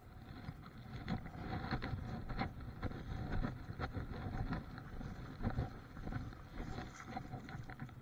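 Water sloshing and lapping around a small boat on the sea, with wind rumbling on the microphone and irregular light knocks and splashes throughout.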